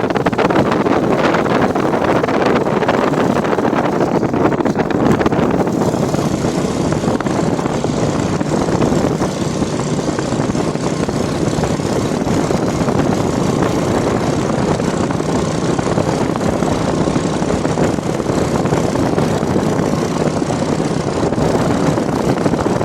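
Steady road and wind noise from a car driving along, loud and unbroken.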